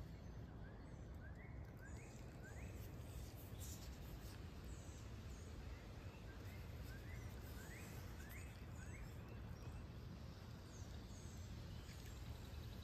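Faint outdoor ambience with birds calling: short rising chirp notes repeated in quick runs of three or four, over a low steady background noise.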